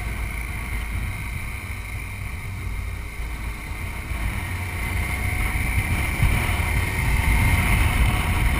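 BMW motorcycle riding at road speed, recorded on the bike: heavy wind rumble on the microphone over a steady engine drone, growing louder about six seconds in.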